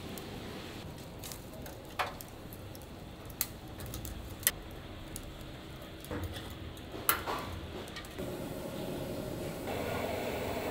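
Kitchen clatter: a handful of sharp, irregular clinks and knocks over a steady background hum.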